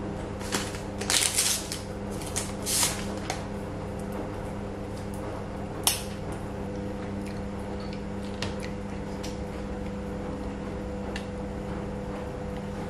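Several short crinkling bursts of plastic food packaging being handled in the first few seconds, then one sharp snap about six seconds in as a pair of disposable wooden chopsticks is split apart. A steady low hum runs underneath.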